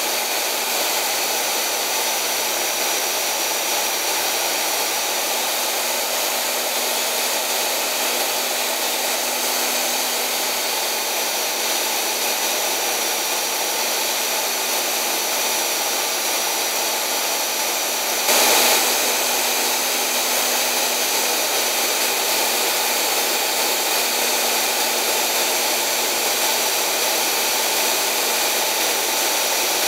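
A 4-by-24-inch belt sander with a 120-grit belt runs steadily while the steel bevel of an old chisel is ground against it, a constant grinding hiss over the motor's hum. A brief louder surge lasting about half a second comes a little after halfway through.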